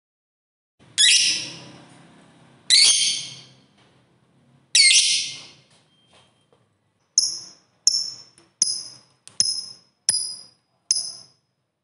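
Lovebird calling: three loud, harsh, high screeches about two seconds apart, then a quick run of seven short, sharp chirps.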